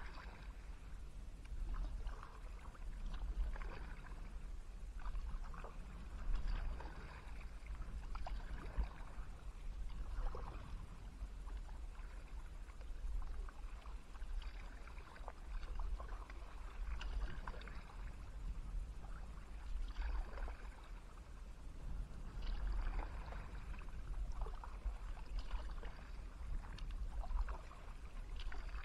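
Kayak paddle blades dipping and splashing in the river in a regular rhythm, about one stroke every second and a half, with water dripping off the blades. A steady low rumble runs underneath.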